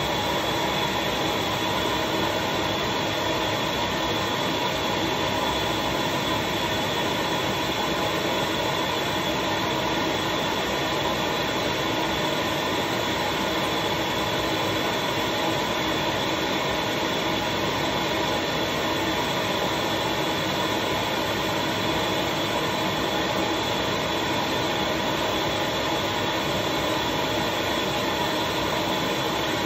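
Suction motor of a leaf-casting vacuum setup running steadily, an even rushing noise with a constant whine, drawing paper pulp down into the missing areas of a comic page.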